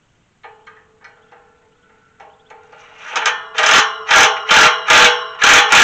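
Craftsman 20-volt brushless impact driver running a nut down on a gate hinge bolt. The motor spins with a steady whine, then from about three seconds in it hammers in a string of short, loud bursts as the nut tightens.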